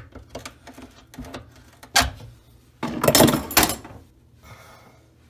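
Pliers working the corroded metal mounting screws and clips under an undermount bathroom sink: scattered light clicks and scrapes, a sharp click about two seconds in, and a louder burst of metal rattling and scraping around three seconds in.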